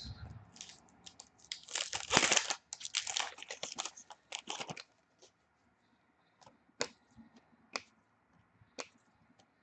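A hockey card pack's wrapper being torn open and crinkled for a couple of seconds, then a few separate soft clicks of cards being handled.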